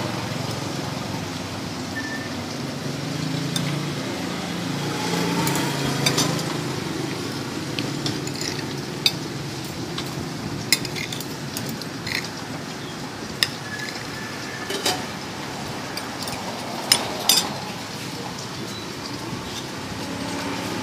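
Metal spoon and fork clinking and scraping against a china plate of rice, about ten sharp clinks at irregular intervals over steady background noise.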